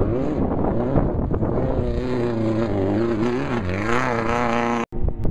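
Off-road race vehicle engine running hard, its pitch wavering with throttle and gear changes, dipping and then rising as it revs up. The sound cuts off suddenly near the end.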